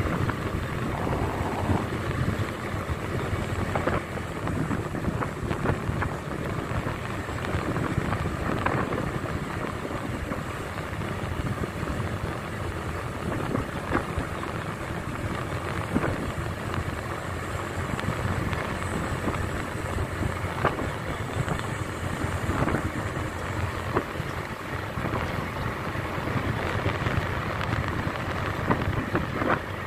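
Motorcycle engine running steadily while riding, with wind noise on the microphone and brief knocks every few seconds.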